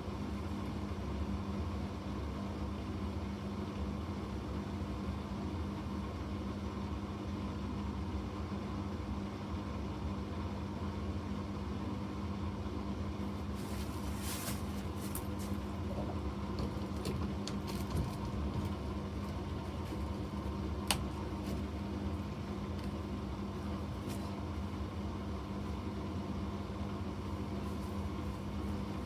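Bosch washing machine running a Quick 15 cycle with a pillow inside: a steady motor hum with a low, even drone. A brief crackle of small ticks comes about fourteen seconds in, and a single sharp click about twenty-one seconds in.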